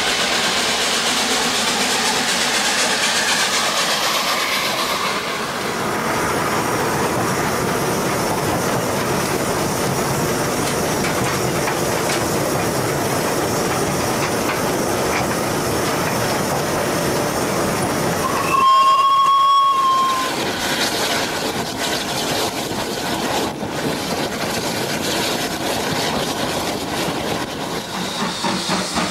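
A steam locomotive running along the line, with steady running noise and rail clatter. About two-thirds of the way through, its steam whistle gives one blast lasting a little over a second.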